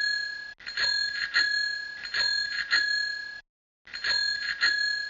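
A bell rung in quick pairs of strikes, ding-ding, about every second and a half, over its own steady ringing. It cuts off abruptly into dead silence about three and a half seconds in and starts again half a second later, like a looped sound effect.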